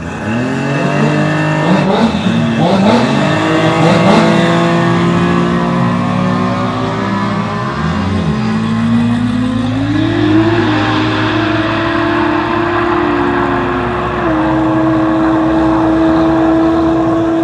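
Performance car engines revving: sharp throttle blips rise and fall over the first few seconds, then the revs climb and are held high and steady for several seconds.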